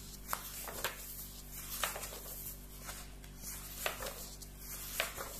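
Pages of a comic magazine being turned and handled: about five short paper rustles and flicks over a low steady hum.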